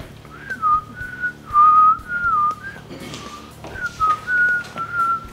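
A woman whistling a short tune through pursed lips: a run of clear single notes sliding between pitches, in two phrases with a short pause near the middle.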